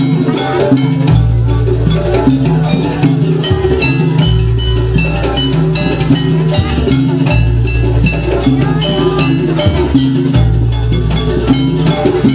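Loud Javanese jaranan dance music: steady drumming over a deep repeating bass line, with bright, ringing metal percussion notes on the beat.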